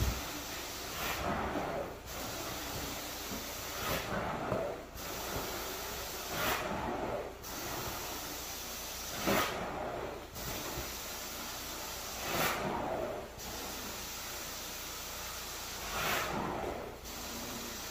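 Rug-cleaning equipment hissing steadily. The hiss swells and dips in a regular stroke-like pattern about every three seconds.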